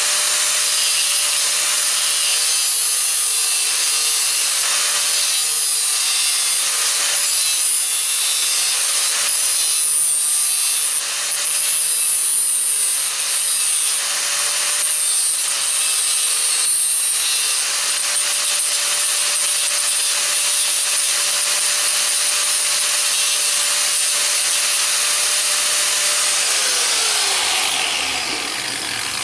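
Angle grinder running at a steady speed, its disc grinding into a steel hinge barrel to cut out the gaps between the knuckles, with a harsh hiss that swells and eases as the disc is worked in. Near the end the grinder is switched off and its pitch falls as it spins down.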